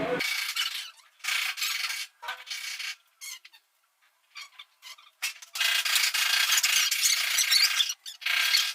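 Irregular strokes of scraping on a hard surface, short and broken at first, then a longer continuous run from about five and a half seconds in.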